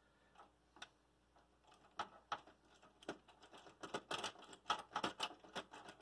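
Faint, irregular small clicks and ticks, sparse at first and busier after about two seconds: a screw being turned in to fasten a card's bracket in a PC case expansion slot.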